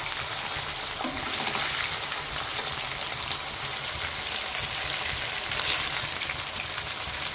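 Chicken breast fillets sizzling steadily on a hot oiled grill pan as their juices cook off, with light clicks of metal tongs as pieces are turned.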